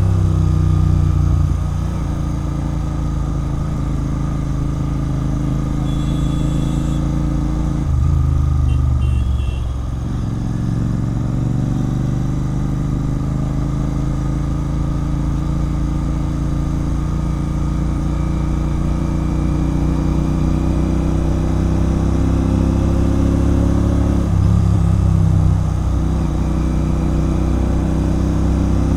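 Royal Enfield Continental GT 650's parallel-twin engine running under way through a loud Red Rooster Performance aftermarket exhaust. The revs climb slowly, with short louder bursts of throttle about eight seconds and twenty-four seconds in.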